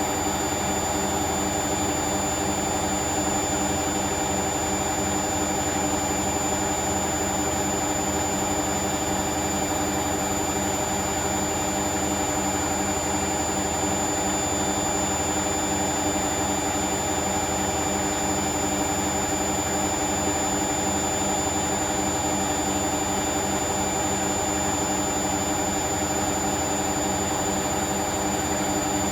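Hoover washing machine in its final spin at about 1000 rpm: a steady motor hum and drum rumble with a constant high-pitched whine, holding one speed throughout.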